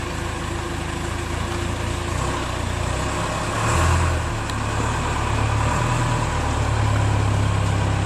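Backhoe engine running steadily, swelling briefly about four seconds in and running a little louder after that.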